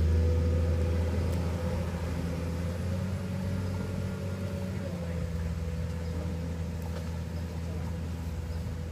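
Komatsu PC210 excavator's diesel engine running steadily, heard from a distance as a low, even hum.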